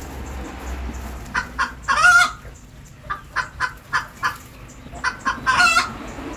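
A chicken clucking in runs of short notes, breaking twice into a longer drawn-out squawk, about two seconds in and again near the end.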